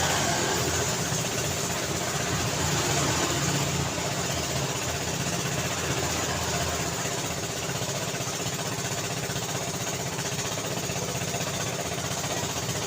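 Busy city street traffic: a steady mix of car and motorbike engines running and passing, with road noise.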